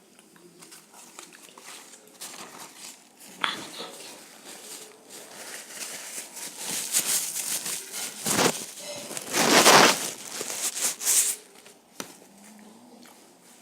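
Rustling and crinkling noises close to the microphone, coming in uneven bursts, the loudest about nine to ten seconds in.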